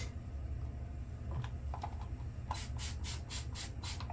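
A quick run of about seven short scratchy strokes in the last second and a half, with a few small clicks just before them, over a steady low hum.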